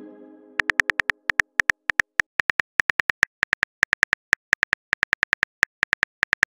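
Phone keyboard typing clicks: rapid, irregular clicks, several a second, as a text message is typed out. The tail of a ringing message tone fades out over the first second.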